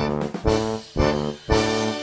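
Upbeat background music: a melody of short held notes with brief gaps and percussive hits between them.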